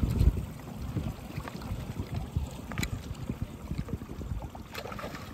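Water lapping and gurgling against a small boat's hull, with an uneven low rumble of wind on the microphone and a louder low thump right at the start.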